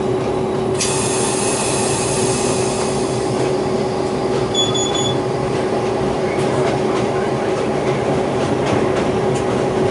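DQ class diesel locomotive running steadily under load at the head of a loaded ore train, a constant engine drone with a steady hum. From about one second in to about three seconds in, a high squeal rides over it, typical of wheels squealing on a curve.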